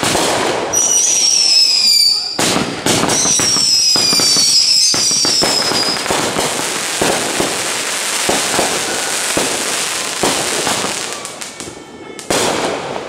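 Consumer fireworks going off: several sharp bangs, high whistles that slowly fall in pitch in the first half, and a long stretch of dense crackling that fades near the end before a last bang.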